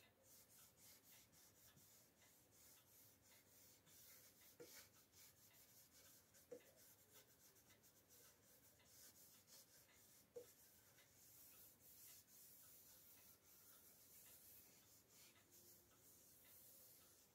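Very faint rubbing of a hand-held pad over a wooden cabinet frame as finish is worked into the wood, in many short strokes, with three soft taps on the wood.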